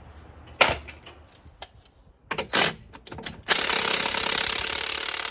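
A few sharp knocks, then an impact wrench with a 21 mm deep socket hammering for about two seconds, rattling steadily until it stops at the end.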